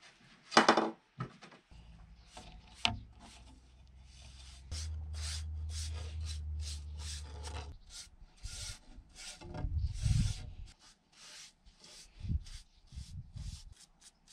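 Paintbrush strokes rubbing linseed oil onto wooden trim strips, a run of short scraping strokes about two a second. There is a sharp knock about half a second in, and a low steady hum for several seconds in the middle.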